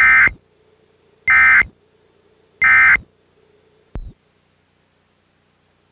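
Emergency Alert System end-of-message data tones: three identical short, buzzy bursts of SAME digital tones about 1.3 seconds apart, marking the end of the test alert. A brief low thump follows about four seconds in.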